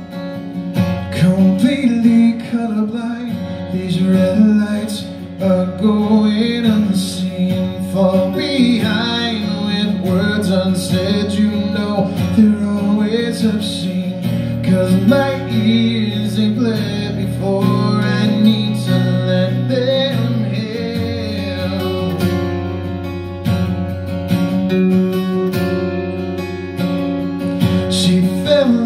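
Steel-string acoustic guitar played live, strumming and picking chords through the opening of a song.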